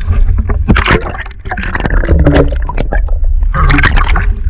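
Sea water splashing and gurgling around a handheld action camera as it dips under the surface and comes back up, with a burst of splashes about a second in and another near the end, over a steady low rumble.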